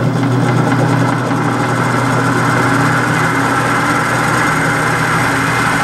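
Steady, loud electrical hum of a homemade pulsed low-resistance coil rig driving a motor, a low droning tone with a whir over it. The builder takes the hum for back EMF at work.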